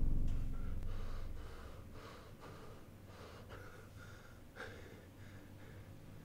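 A man breathing shakily with soft gasps and sniffs, quiet and irregular, while a low music rumble fades away over the first couple of seconds. A brief sharper click comes about four and a half seconds in.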